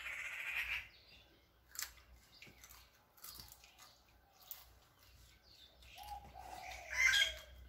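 Crisp crunching and chewing of fried salted fish with rice, in short sharp bites, mixed with birds chirping.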